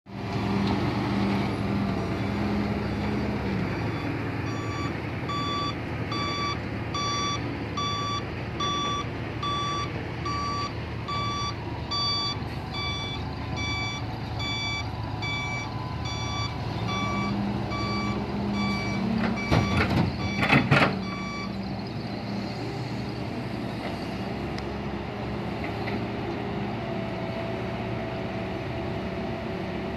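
Dump truck reversing: its reverse alarm beeps steadily about twice a second for some seventeen seconds over the steady running of the engines. A few loud sharp knocks come near the end of the beeping.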